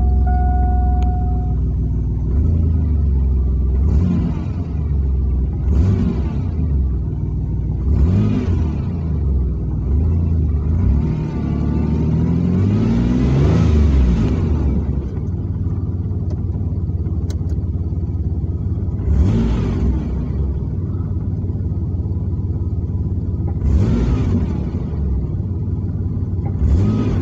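GM 4.3-litre V6 engine idling and being revved, heard from inside the cab: about half a dozen short throttle blips and one longer rev near the middle, each rising and falling back to idle. The revving is part of a fuel pressure test.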